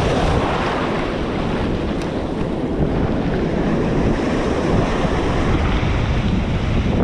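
Strong wind buffeting the microphone, a steady low rushing noise, with ocean surf washing underneath.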